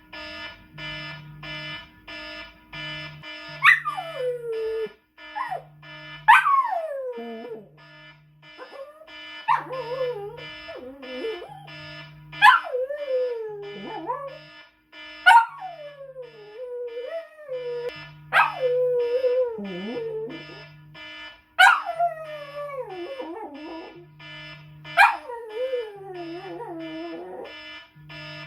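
Poodle howling along to a ringing electronic alarm. About eight howls, one every few seconds, each starting high and sliding down, over the alarm's quickly repeating beeping tune.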